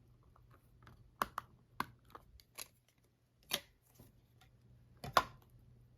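Trading cards and their packaging being handled: irregular light clicks, taps and short scrapes, with a sharper click about five seconds in.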